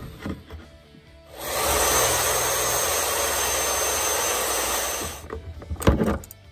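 Electric drill boring through the CitiCar's plastic body panel, starting suddenly about a second and a half in and running steadily for about four seconds before stopping. A few sharp knocks follow near the end.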